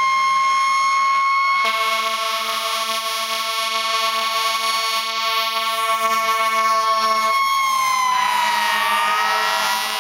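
Several fire engine sirens sounding together: one held high tone that sags and climbs back near the end, with other sirens wailing up and down across it. A deep horn is held over them from about two seconds in until past seven seconds, then cuts off.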